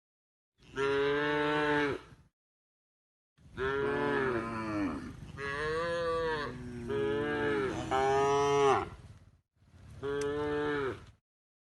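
Cattle mooing: a string of about six long moos, each with a pitch that bends up and down, broken by short gaps of dead silence.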